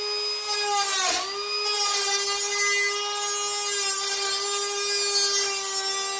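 Small high-speed rotary tool with a cutoff wheel whining steadily while it cuts through wire mesh, with a grinding hiss as the wheel bites. The pitch sags briefly about a second in as the wheel loads up.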